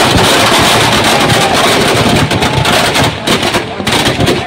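Firecrackers packed into a burning Ravan effigy going off in a rapid, dense crackling rattle of bangs, like machine-gun fire, thinning to scattered bangs after about two seconds.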